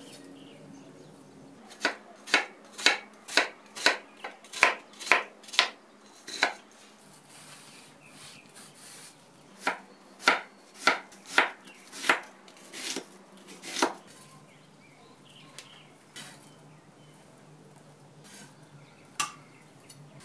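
Chef's knife chopping an onion on a wooden cutting board: a run of about ten quick chops, then after a pause a second run of about seven, and one more knock near the end.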